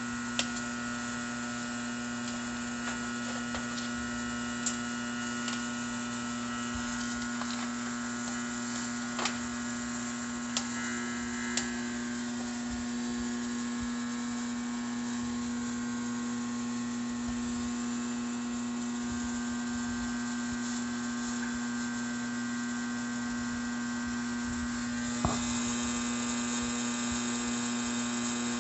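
Steady electrical hum and buzz from inside an Autool LM706 A/C recovery machine switched to vacuum, with a few faint clicks and knocks. The vacuum pump does not run: the machine is faulty.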